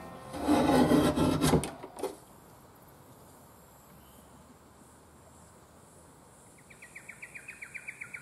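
Small antique desktop board shear with a freshly sharpened blade, its lever blade pulled down through a sheet of board: a rough scraping crunch lasting about a second and a half. Near the end, a rapid run of high chirps from an animal call.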